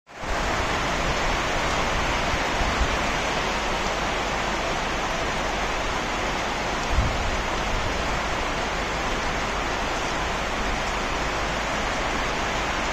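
Heavy rain falling, a steady dense hiss, with a brief low thump about seven seconds in.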